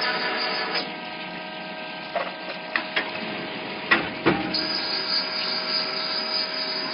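Large-nut tapping machine running, a steady mechanical whine of several tones from its spindle drive, dropping slightly in level about a second in. A few sharp clicks and knocks come between about two and four and a half seconds in, the loudest near four seconds.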